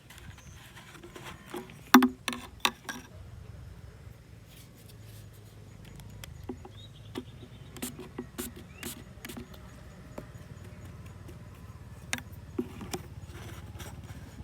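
Irregular sharp clicks and knocks over a low steady hum: a loud cluster about two seconds in, a run of lighter taps in the middle, and a few more near the end.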